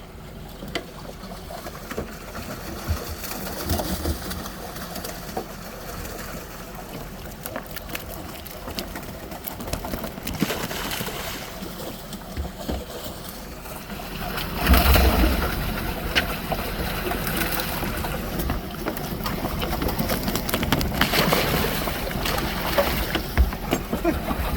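Water splashing and sloshing outdoors, with scattered knocks and a louder rushing surge about fifteen seconds in.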